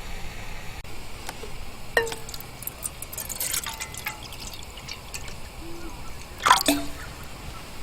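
A few light clinks and knocks, each with a short ring: one about two seconds in, a scatter a little later, and the loudest near the end, among faint liquid-like sounds.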